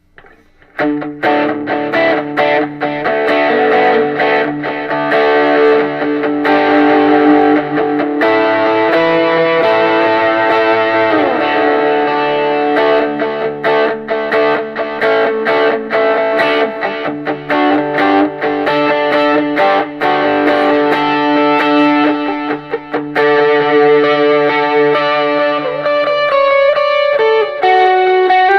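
Electric guitar played through a 1949 Gibson BR-9 tube amp (push-pull 6V6 output tubes, original field-coil speaker), sustained chords and notes with some overdrive, starting about a second in and with a slide down in pitch about eleven seconds in. The amp plays loud and free of pops and crackles, its arcing phase inverter transformer having been replaced.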